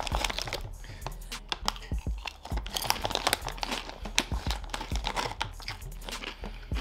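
Crinkly plastic chip bag being torn open along its easy-open strip and handled, a dense run of sharp crackles.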